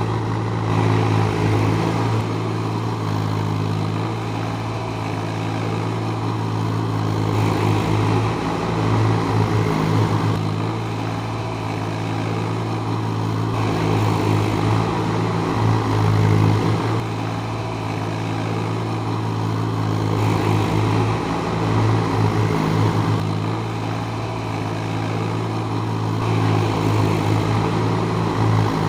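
JCB 30 Plus mini excavator's diesel engine running steadily, its sound swelling and easing in a repeating cycle about every six to seven seconds as the machine works.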